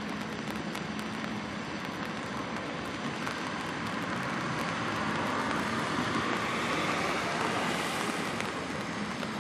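Steady rushing noise of water washing along the hull of a passing container ship, mixed with wind, growing a little louder in the second half.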